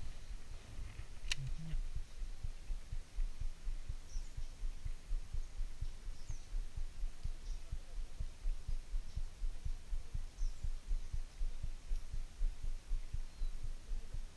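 Low, muffled thumps a few times a second, handling rumble on a body-worn action camera's microphone while a lure is retrieved with a baitcasting reel. There is one sharp click about a second in, and a few faint bird chirps.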